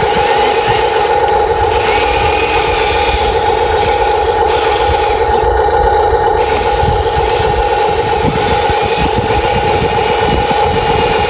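Radio-controlled model excavator's motor and hydraulic pump running with a steady whine.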